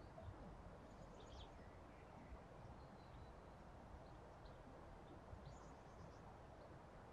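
Faint birds chirping: short high twittering bursts about a second in and again about five and a half seconds in, with a few single chirps between, over a quiet, steady background hush.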